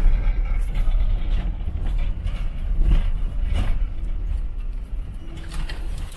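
Inside the cab of a T1N Sprinter van driving slowly over a rough dirt forest track: a low rumble of engine and tyres, broken by irregular knocks and rattles as the van jolts over bumps and ruts.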